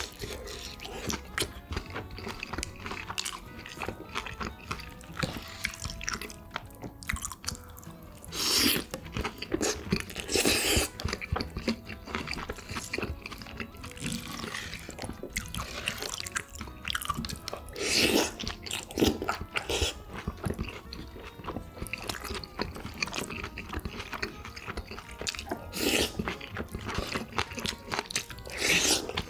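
Close-miked eating sounds: steady chewing with many small wet clicks, and several louder crunching bites or slurps.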